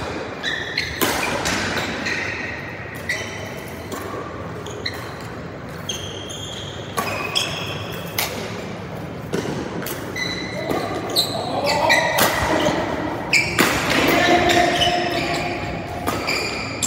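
Badminton doubles rally in a large, echoing hall: a string of sharp racket strikes on the shuttlecock, with court shoes squeaking and footsteps on the mat. Voices are heard between about eleven and fifteen seconds in.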